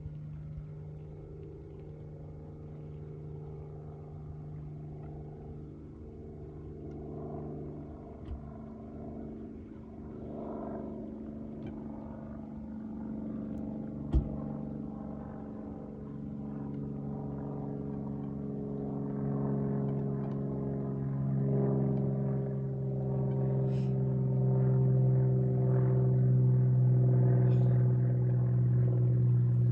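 A motor engine drones steadily at a distance, its pitch drifting slowly and growing louder over the second half as it comes closer. A sharp knock about fourteen seconds in and a smaller one earlier.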